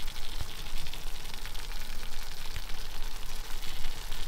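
Cheese dish sizzling and bubbling in a cast-iron pan on the stove: a steady crackling hiss.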